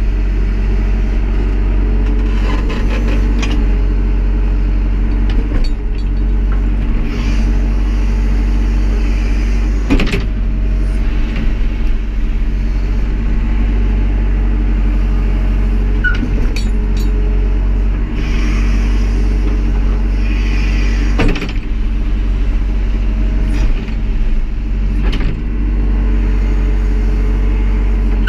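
Tractor backhoe engine running steadily under work, with a few sharp knocks, about 10 and 21 seconds in.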